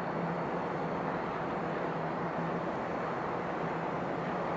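Steady low engine drone with an even wash of background noise, holding level throughout.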